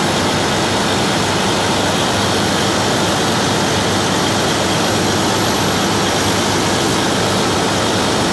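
Freightliner Classic semi truck's diesel engine running steadily with the A/C switched on, a constant roar with a low hum underneath.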